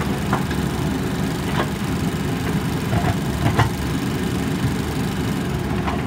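JCB backhoe loader's diesel engine running steadily, with a few short sharp knocks.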